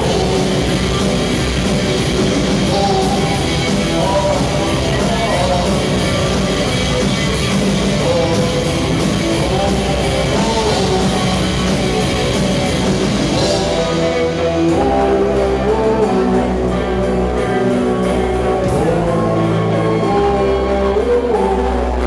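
Live post-punk band playing loud: drums, bass guitar and guitar with a singing voice. About two-thirds of the way through, the drums thin out and long held bass and guitar notes ring on.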